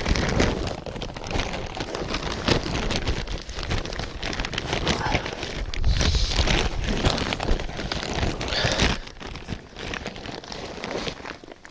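Crackly rustling and crinkling of a plastic-lined sack of treated straw being handled and tied shut, with many small irregular crackles.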